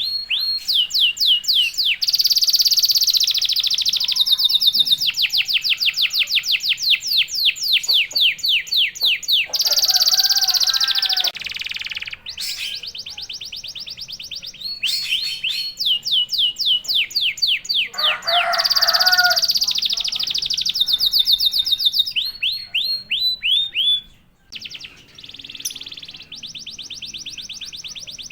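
Domestic canary singing a loud, fast rolling song: long trills of rapidly repeated high notes, changing from one phrase to the next every few seconds, with a brief pause near the end.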